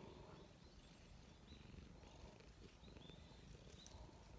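Faint purring of a cat being stroked, with a few short high chirps in the background.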